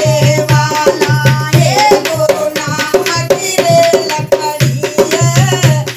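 A woman singing a Hindi devotional bhajan to a dholak. The drum is struck in a quick, steady rhythm, with sharp percussion strokes over it.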